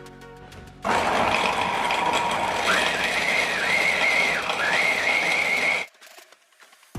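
Electric blender motor running for about five seconds, grinding a spice paste of shallots, garlic, candlenuts, chilies and cooking oil, with a high whine that wavers as the blades work through the mix. It starts about a second in and cuts off suddenly near the end.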